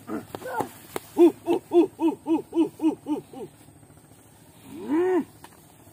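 A voice hooting in a quick run of about nine short rising-and-falling hoots, about four a second, then one longer hoot near the end.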